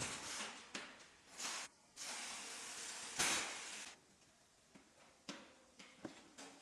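Factory work noise: short hissing bursts and knocks, with a longer hiss from about two to four seconds in, then a few scattered clicks.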